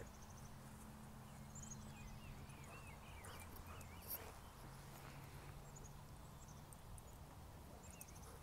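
Near silence: quiet outdoor ambience with a low steady hum and a few faint chirps about two to three seconds in.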